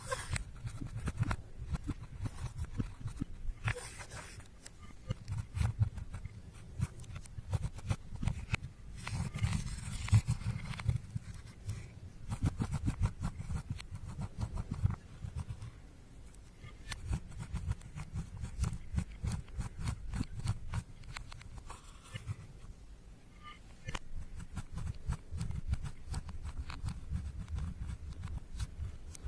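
Slime being squished and kneaded by hand in a run of wet squelches and many small sticky clicks and pops, easing off briefly twice.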